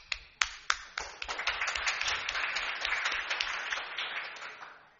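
Audience applauding: a few scattered claps at first, then full applause that builds and dies away before the end.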